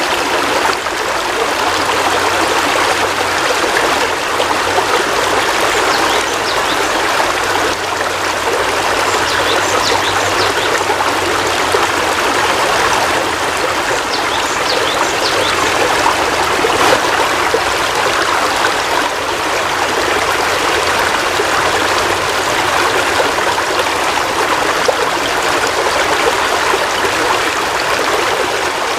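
Heavy rain falling steadily, an even, unbroken rush of water.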